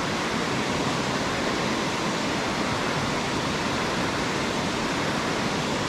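Steady rush of river water pouring over a low rocky ledge: an even, unbroken hiss.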